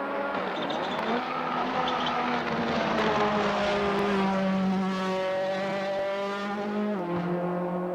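Car engine running hard at high revs, its pitch climbing over the first few seconds and then holding fairly steady, over a steady low hum, with a sudden change in pitch about seven seconds in.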